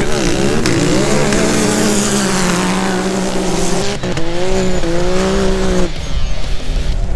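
Several UTV race engines revving hard, their pitch dipping and climbing as they accelerate, with music underneath. The engine sound falls away about six seconds in.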